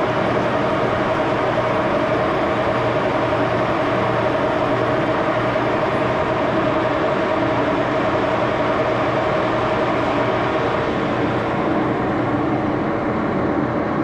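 Axelson gear-head engine lathe running at 629 RPM while drilling aluminum bar stock, with a steady gear whine made of many tones. About twelve seconds in, the higher part of the sound fades as the spindle stops.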